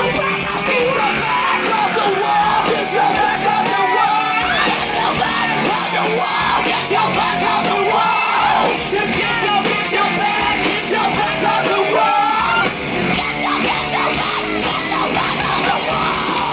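Live rock band playing loud, heavy music with yelled vocals over it, recorded from the audience.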